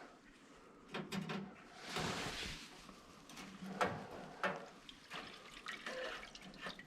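Cleaning liquid dripping and splashing faintly as GPU boards are lifted out of an ultrasonic cleaner's bath, with a few light knocks.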